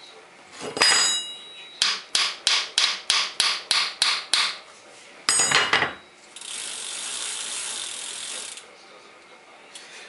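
Metal-on-metal work on a bicycle's cup-and-cone bottom bracket while its locknut is tightened with a flat bicycle wrench. There are two ringing metallic clanks, about a second in and again about five seconds in. Between them comes an even run of about eleven sharp metallic ticks, about four a second. After that there is a steady hiss for about two seconds.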